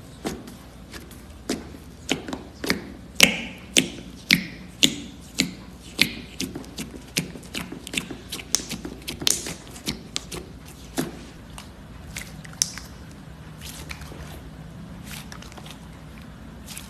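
Slime being pressed and poked by hand, giving a run of sharp clicks and pops at about two a second, thinning out after about ten seconds.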